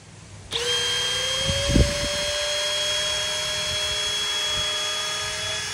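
Cordless drill running with its chuck clamped on a crossbow bolt stuck in a foam archery target, spinning the bolt to work it free. It is a steady whine that starts about half a second in and rises a little in pitch over the first second, with a brief low thump just under two seconds in.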